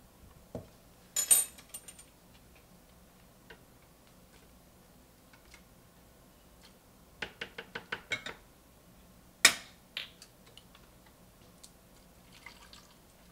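A metal spoon clinking and scraping against a can and a stainless mixing bowl: a couple of sharp clinks about a second in, a quick run of about eight taps around seven seconds in, then one loud clink. Near the end comes a faint pour of liquid from the can into a blender jar.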